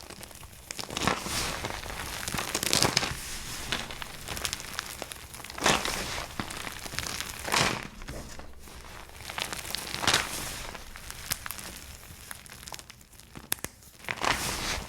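Soap being crunched for ASMR: a string of crisp, crackling crunches with louder bursts every second or two.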